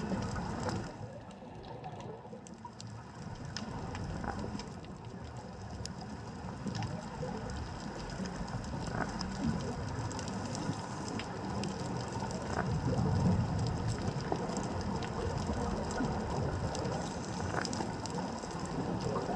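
Underwater ambience picked up by a GoPro in its waterproof housing on the reef: a steady low rumble with many scattered sharp clicks and crackles throughout, the rumble swelling about two-thirds of the way in.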